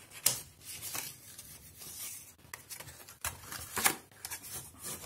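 Patterned cardstock being folded and pressed into a box shape by hand, the paper rustling and rubbing, with a few louder crackles as the folds are pushed in.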